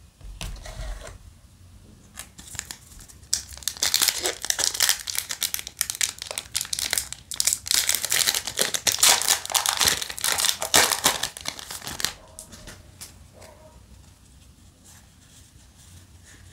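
A foil booster pack of Yu-Gi-Oh! trading cards being torn open and crinkled by hand, a dense crackling from about three seconds in until about twelve seconds, with quieter rustling of the pack and cards before and after.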